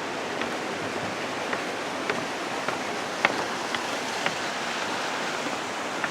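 Gunnison River rushing: a steady, even hiss of flowing water, with a few short sharp clicks scattered over it.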